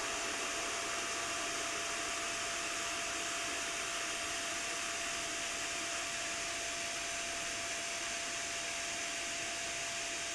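A powerful 12-volt DC axial fan running at full speed: a steady rush of air with a constant motor whine, held at one pitch.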